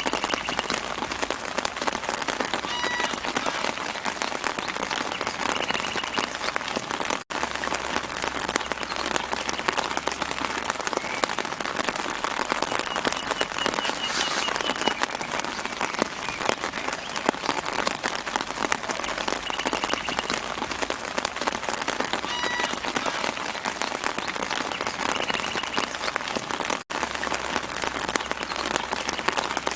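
Light rain falling steadily on leaves, a dense patter of small drops, with a few faint bird chirps in the background. The sound cuts out for an instant twice.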